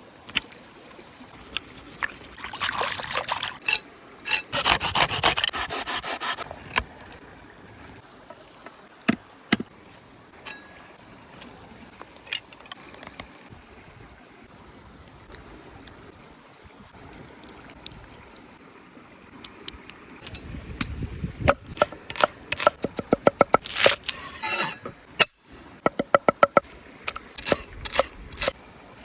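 Food-preparation handling sounds: a few seconds of scraping and rubbing, scattered sharp clicks, then a quick run of regular taps near the end, about four or five a second.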